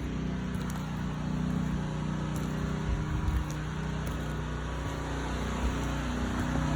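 A steady low engine-like hum with a few faint clicks.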